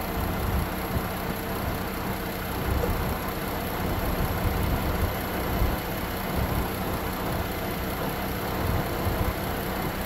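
A 2012 Chrysler Town and Country's 3.6-litre V6 engine idling steadily, heard close up in the open engine bay, with the A/C switched on at full fan while refrigerant is charged into the system.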